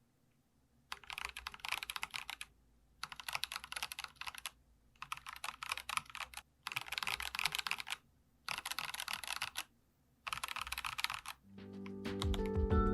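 Typing on a Geekstar mechanical keyboard: six short runs of quick keystrokes with brief pauses between them. Music comes in near the end.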